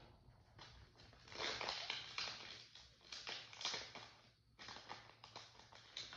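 Foil wrapper of a Yu-Gi-Oh booster pack crinkling and tearing as it is ripped open by hand, in bursts of rustling, then shorter crackles as the cards are slid out of it near the end.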